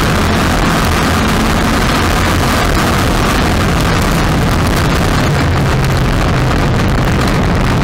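Street stock race car's engine running hard at racing speed, heard loud and close from a camera on its hood. A dense rush of noise lies over the engine's low drone, and the engine note shifts about halfway through.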